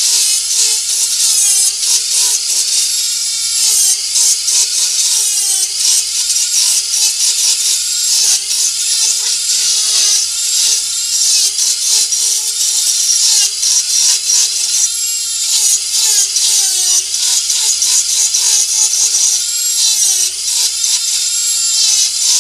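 Dremel 4000 rotary tool spinning a carving burr against driftwood, grinding away wood. It makes a continuous high whine over a gritty grinding hiss, and the pitch dips and recovers over and over as the burr bites in.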